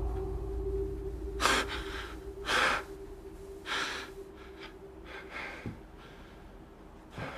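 A person breathing heavily in gasps, about five breaths a second or so apart, growing fainter.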